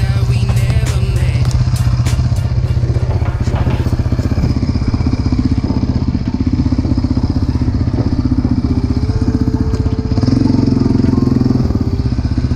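Yamaha Raptor 700 quad's single-cylinder engine running steadily, with clicks and knocks in the first few seconds. About ten seconds in the engine revs up as the quad pulls away.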